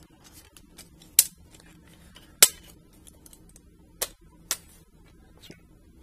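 Sharp plastic clicks and small taps as a blue plastic tool-less hard-drive caddy is fitted onto a hard drive, its posts snapping into the drive's holes. Four louder clicks stand out, the loudest about two and a half seconds in.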